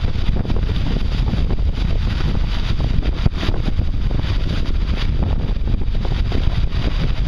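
Strong wind blowing across the microphone in a sudden squall: a loud, continuous, gusting rush heaviest in the low end.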